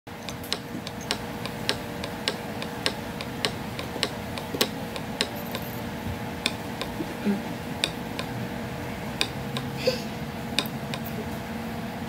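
Small speaker of a breadboarded electronic bird-whistle circuit giving sharp, evenly spaced clicks, about two a second at first, then slowing to about one every second and a half while its trimmer is turned, over a faint steady hum.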